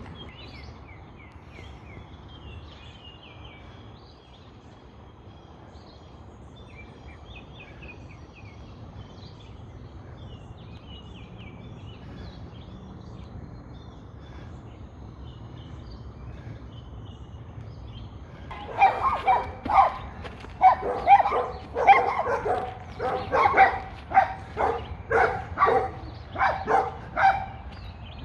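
Faint bird chirps over a low outdoor hum, then about two-thirds of the way in, dogs start barking loudly in rapid repeated bursts that carry on to the end. The barking scares off an intruder.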